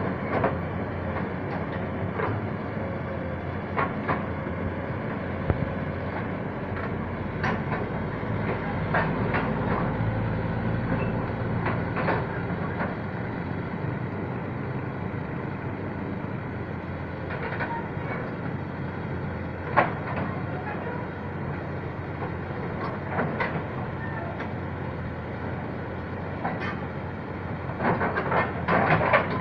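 Komatsu excavator on the move, its diesel engine running steadily with irregular metallic clanks and clicks, busier near the end.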